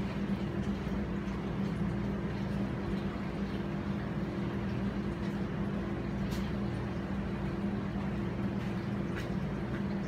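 Carrier outdoor air-conditioner condenser unit running: a steady low hum with an even rush of noise over it.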